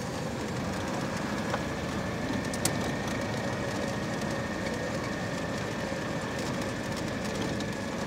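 Steady engine and road noise of a car rolling slowly over a dirt track, heard from inside the cabin, with a thin steady whine above it and a couple of small knocks.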